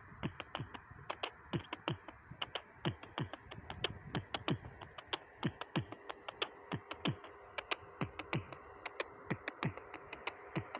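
Beatboxing: rapid mouth clicks mixed with short, falling, kick-drum-like thumps, several strokes a second in an uneven rhythm. A faint steady tone comes in about halfway.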